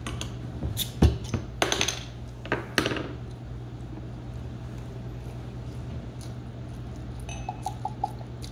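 Glass beer bottle and glass knocking and clinking on the table several times, one knock louder than the rest about a second in, then beer starting to glug out of the bottle into a glass near the end. A steady low hum runs underneath.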